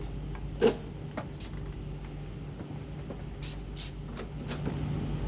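A steady low hum of ship's machinery, with one sharp knock less than a second in and a few faint clicks and rustles later.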